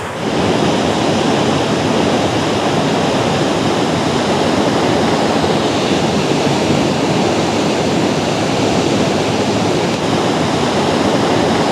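Toketee Falls rushing: a loud, steady roar of falling water.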